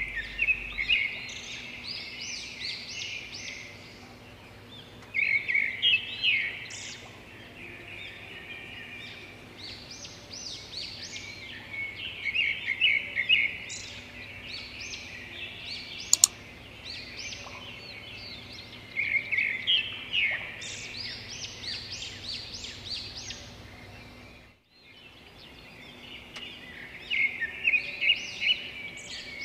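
Birdsong ambience: many small birds chirping and twittering in busy bouts every few seconds over a faint steady background, with one sharp click partway through and a brief dropout near the end.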